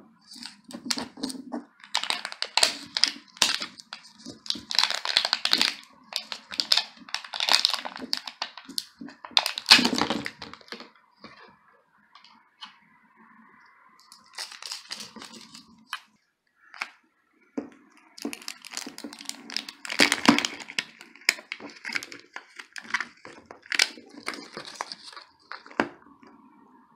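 Plastic wrapping of a 5 Surprise toy capsule being torn and crinkled by hand, in irregular bursts of crackling with a short lull midway.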